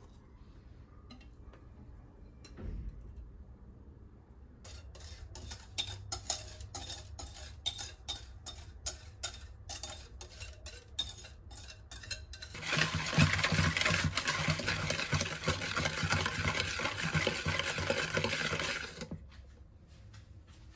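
A utensil clinking and scraping against a mixing bowl while ingredients for cookie dough are mixed: first separate taps a few times a second, then for about six seconds a faster, louder, continuous rattle of vigorous stirring, stopping shortly before the end.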